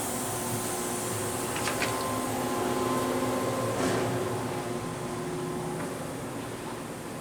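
Steady hum of a powered-up Haas Super Mini Mill CNC vertical machining center idling, its fans and electrics giving several constant tones over a hiss, with a few light clicks about two and four seconds in.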